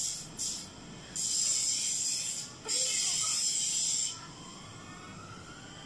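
Sharp hissing: two short hisses, then two longer ones of over a second each, then a lull.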